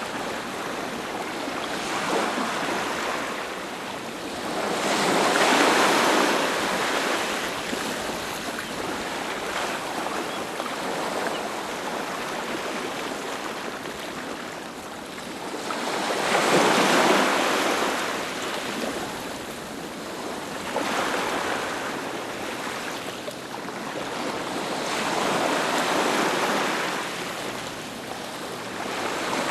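Ocean waves breaking and washing onto a beach, a steady rush of surf that swells louder every several seconds as each wave comes in, most strongly about five and seventeen seconds in.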